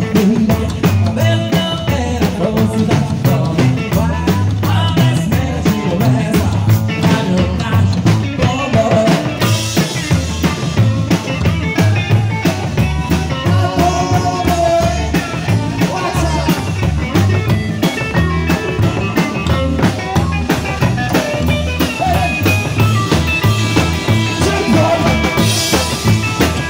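Live rockabilly band playing: upright bass, electric guitar and drum kit at a steady, driving beat.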